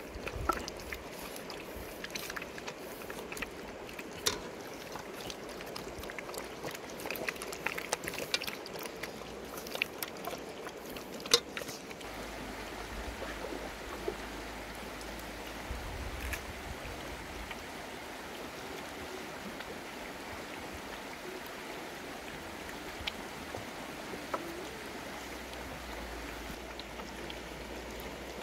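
Steady rush of flowing river water, with scattered small clicks and knocks from puppies eating at a bamboo trough, busiest in the first twelve seconds, and one sharper knock about eleven seconds in.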